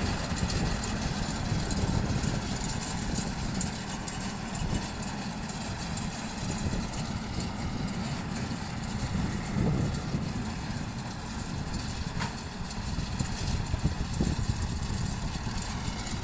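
Engine of a round straw baler rig running steadily, with a low rumble and one brief click about twelve seconds in.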